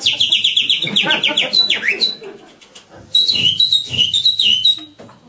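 Birdlike whistling: a fast trill of about eight chirps a second that ends in a falling slide about two seconds in, then after a short pause a run of short chirps that each drop in pitch.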